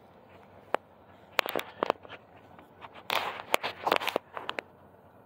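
Irregular sharp clicks and crackling rustles from someone walking with a handheld phone, busiest for about a second past the middle.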